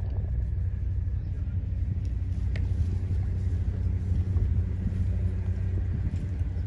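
Wind buffeting a phone microphone outdoors, a steady, flickering low rumble. A faint click sounds about two and a half seconds in.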